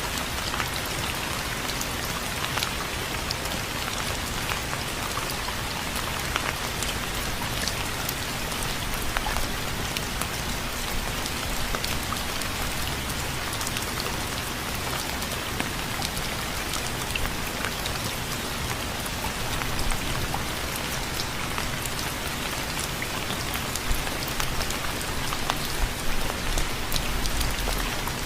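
Steady rain falling, with many separate drops ticking sharply on a hard surface over the even patter.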